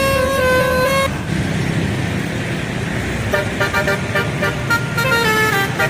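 Bus telolet horn playing a melody of tooting notes that step up and down in pitch, breaking off about a second in to a stretch of bus engine and road noise, then starting again with short, quick toots about halfway through.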